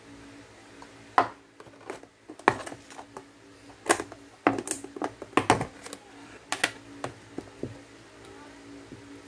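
Irregular sharp plastic clicks and knocks as the lid of a plastic spread tub is pried off and set down on the counter, with a wooden spoon handled alongside, over a faint steady hum. The clicks come thickest in the middle few seconds and thin out near the end.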